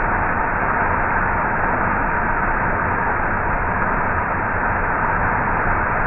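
Waterfall pouring down rock into a pool: a steady, even rush of falling water.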